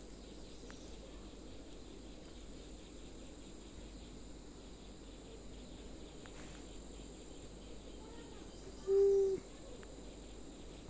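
Faint outdoor background of insects chirping steadily, broken about nine seconds in by a single brief, steady hum.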